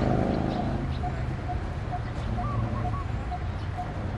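Birds calling over a steady low engine hum. One bird repeats a short note about twice a second, and another gives a brief rising call followed by two quick notes every couple of seconds.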